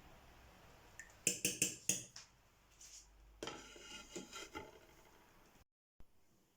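Kitchenware clinking: four quick sharp clinks about a second in, then a longer run of lighter clinks and scrapes.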